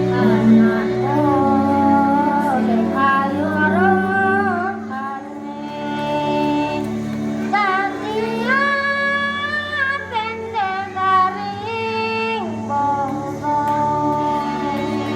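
Children singing a melody with held notes over instrumental backing music.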